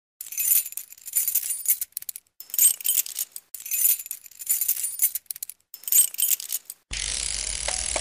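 Title sound effect: about five swells of high, glittering, jingling shimmer with short gaps between them. About seven seconds in, it gives way to a steady hiss with a low hum.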